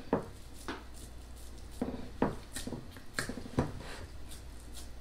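Hands pressing and mashing raw ground beef flat in a glass baking dish: soft squishing, with a few irregular light taps against the glass.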